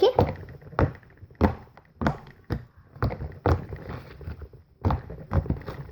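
Slime being squeezed and kneaded in the hands, giving sharp clicking pops, about ten in a row at uneven intervals of roughly half a second to a second.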